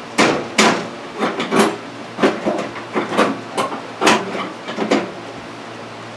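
Irregular sharp clanks and knocks, about ten in six seconds, from tools and metal parts being handled while working on a riding mower.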